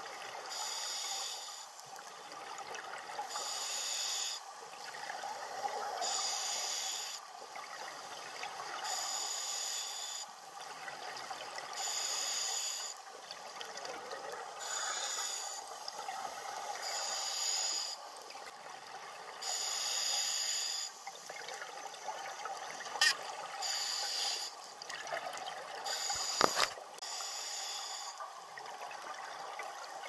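A scuba diver's regulator breathing underwater: a burst of exhaled bubble noise about every two to three seconds over a steady underwater hiss. Two sharp clicks stand out near the end, a few seconds apart.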